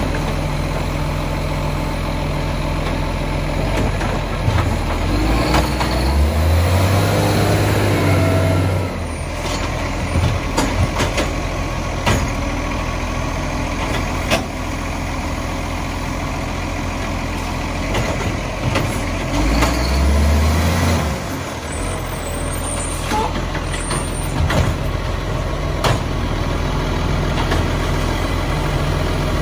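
Acco side-loader garbage truck's diesel engine running, revving up for several seconds about five seconds in and again around twenty seconds in as it works the bin-lifting arm and pulls forward. Sharp knocks and clanks from the lift arm and bins are scattered through.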